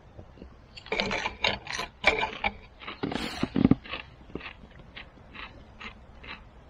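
Crunchy chewing of a rice-bran pickled cucumber (nukazuke). Loud, crisp crunches come for the first few seconds, then fainter chews at an even pace, about two a second.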